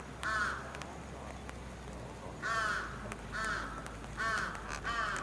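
A bird calling outdoors: short, repeated calls, one near the start and then four in quick succession from about halfway through.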